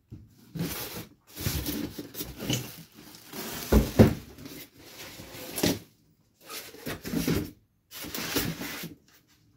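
Handling noises from unpacking a table saw: a run of rubbing and scraping bursts of packaging and parts, with a sharp knock about four seconds in.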